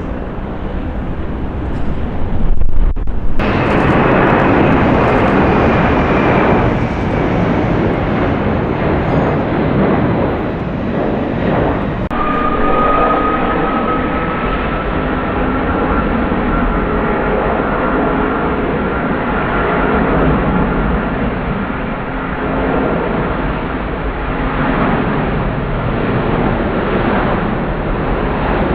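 Jet airliner engines at takeoff power, a loud steady roar with a high whine that slowly falls in pitch. The sound breaks off briefly twice, about 3 and 12 seconds in, before the roar resumes.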